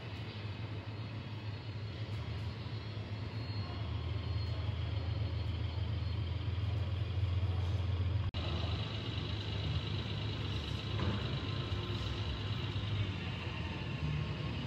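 H0-scale model trains running on a large layout, a steady low rumble with the general noise of the exhibition hall around it; the sound breaks off for an instant about eight seconds in.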